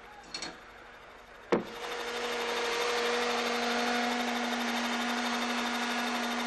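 A sharp knock about one and a half seconds in, then the steady drone of a radio-controlled model helicopter's motor and rotors, holding an even pitch.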